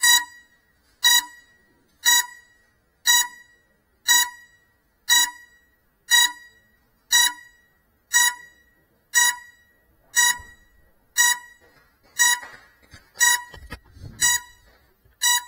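A GEPRC Cinelog 35 FPV drone, at rest after a crash with its motors stopped, beeping a short electronic beep about once a second: the lost-model alarm that helps find a downed quad. Near the end there is a brief low rumble of handling noise as it is moved.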